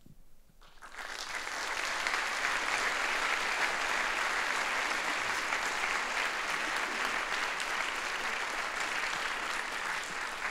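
An audience applauding, the clapping swelling in about a second in and then holding steady.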